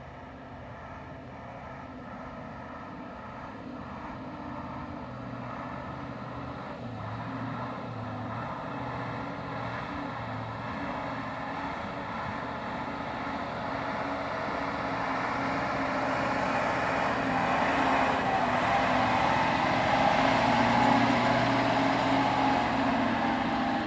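A motor vehicle running, its engine hum and road noise growing steadily louder.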